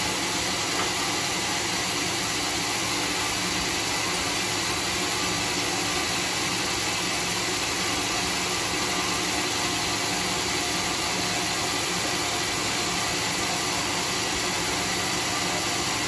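Homemade band sawmill running steadily as its blade saws through a large teak log: an even, unbroken machine noise with a constant hum.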